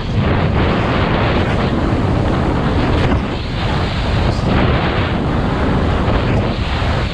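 Heavy wind buffeting a skier's point-of-view camera microphone during a fast downhill run, over the steady hiss of skis sliding on snow.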